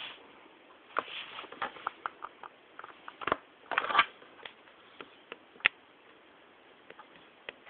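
Airsoft G36 rifle firing: a quick run of sharp clicks at about five a second, a few louder snaps, then scattered single shots.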